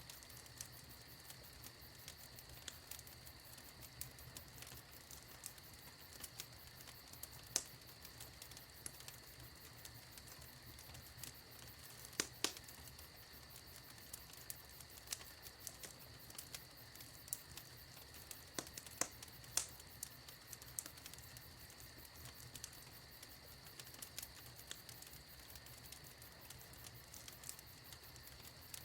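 Wood fire in a fireplace crackling quietly: irregular sharp pops and snaps over a faint steady hiss, with a few louder pops scattered through.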